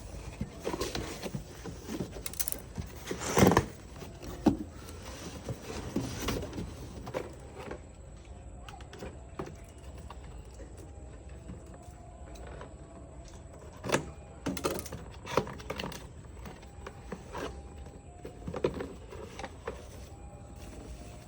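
Packaging being handled during an unboxing: irregular knocks, thumps and rustles. The loudest knock comes about three and a half seconds in, with another cluster around the middle.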